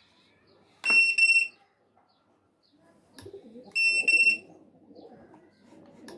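RFID card reader beeping as a card is held to it: two quick runs of about three high beeps, roughly three seconds apart.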